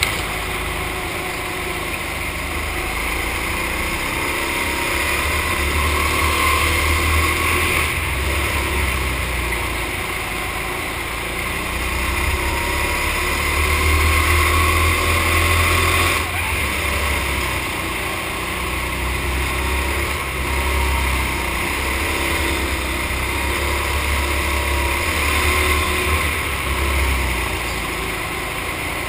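Go-kart engines running hard around an indoor track, their pitch rising and falling as the karts accelerate out of corners and slow into them, with a steady rushing noise over them.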